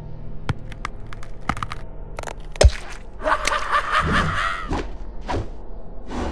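Cartoon sound effects for an animated Halloween skeleton hologram: a run of sharp clicks, a heavy thud about two and a half seconds in, then a drawn-out squelching sound and a few shorter ones.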